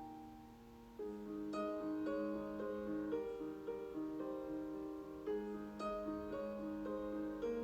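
Background piano music: a slow melody of held notes over chords, coming back in about a second in after a brief fade.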